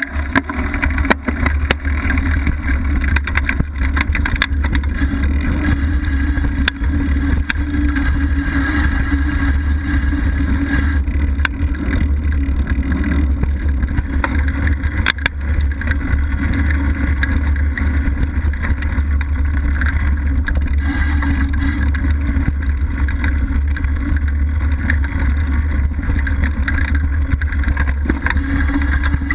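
Mountain bike riding over a leaf-covered dirt trail, heard from a camera mounted on the bike: a steady, loud low rumble of knobby tyres on the trail and wind on the microphone, with scattered clicks and rattles from the bike.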